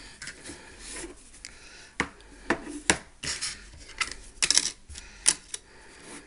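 Handling of a T-Mobile G2X (LG Optimus 2X) smartphone, its battery and its plastic battery cover on a table: a string of sharp plastic clicks and taps from about two seconds in, over light rubbing and handling noise.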